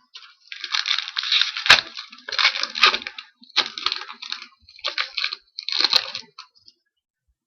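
Trading-card pack wrapper being torn open and crinkled by hand: about five bursts of crackling, with a few sharp snaps, stopping a little after six seconds in.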